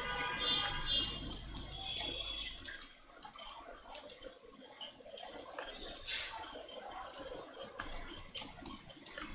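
Scattered sharp clicks of a computer mouse, irregular and about a dozen in all, over a faint low hum that stops about three seconds in.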